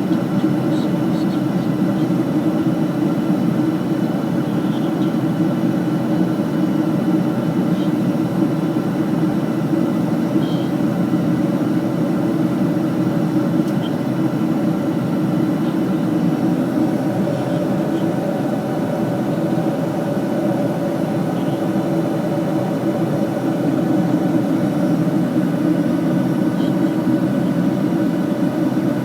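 Steady drone of an airliner cabin in flight: engine and airflow noise, with a few faint steady tones above it.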